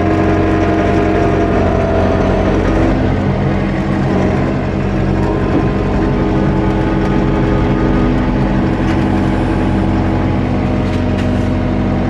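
Tractor engine running steadily at an even speed.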